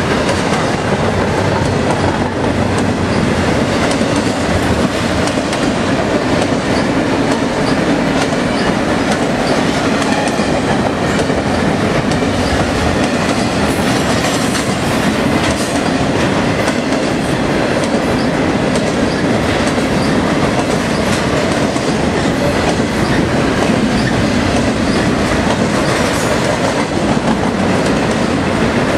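Double-stack container freight train rolling past: a loud, steady rumble of steel wheels on rail, with repeated clicks of the wheels over the rail joints.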